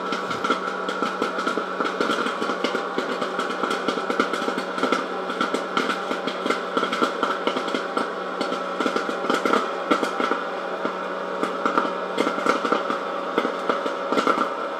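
Presto Fountain hot air popper running: its fan motor gives a steady whir while corn kernels pop rapidly in the hot air stream, many sharp pops a second.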